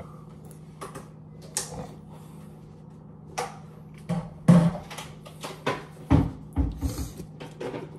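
Scattered knocks, clunks and taps of kitchen things being handled and set down, with the loudest thud about halfway through and a quick run of several more in the last few seconds, over a faint steady hum.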